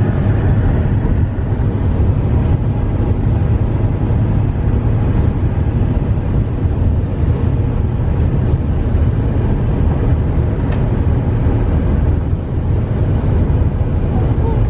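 Steady road and engine rumble heard inside the cabin of a moving car.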